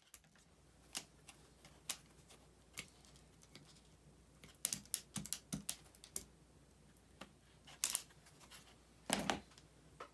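Irregular light clicks and taps of small hard objects being handled and set down. The clicks come singly at first, bunch together about halfway, and are loudest near the end.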